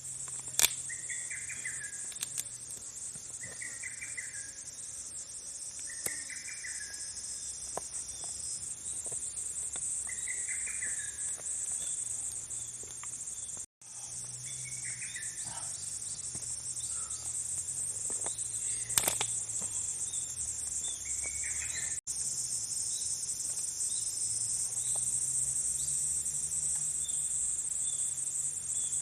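Steady, high-pitched chorus of night insects such as crickets, with a short chirping call repeating about every two seconds for the first half. A few sharp pops stand out, one near the start and one about two-thirds of the way in.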